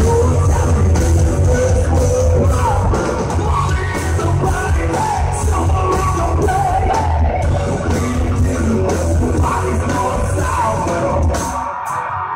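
Rock band playing live at full volume: electric guitars, bass and drum kit under a sung, partly shouted lead vocal, heard from the audience. About a second before the end the deep bass drops away, leaving guitar, voice and cymbals.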